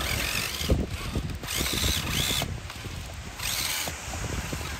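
Electric motor and drivetrain of an Axial SCX10 III Jeep Gladiator RC crawler whining in several short throttle bursts, the pitch rising and falling, while its tyres knock and scrabble over driftwood logs.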